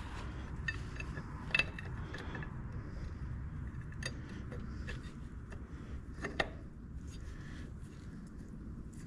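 Scattered light metal clinks and scrapes as a tight-fitting part is worked by hand onto a shaft on a tractor. The sharpest knocks come about one and a half seconds in and again a little past six seconds, over a steady low rumble.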